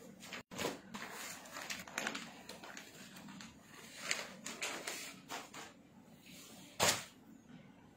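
Rustling and handling of clothing fabric: a string of short, irregular rustles, with a louder one near the end.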